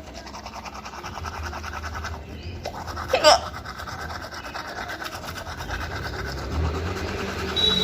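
Rapid brushing strokes, rubbing steadily. About three seconds in comes one sharp squeak that sweeps quickly up in pitch, the loudest moment. Just before the end a steady high-pitched squeal begins.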